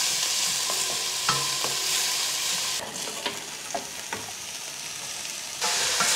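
Diced onions sizzling in oil in a stainless steel pot while being stirred with a wooden spoon. About three seconds in, the sizzle drops as diced carrots, celery and other vegetables are tipped in, with a few light knocks, and it grows louder again near the end.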